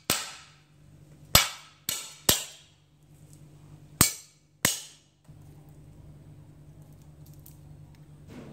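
Knife chopping garlic on a thick wooden chopping block: six sharp chops, unevenly spaced, over the first five seconds. After that only a faint, steady low hum remains.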